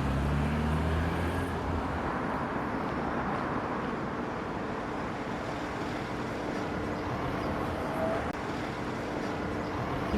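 Steady city street traffic noise, with a vehicle engine running close by and humming low for the first couple of seconds before it fades into the general traffic.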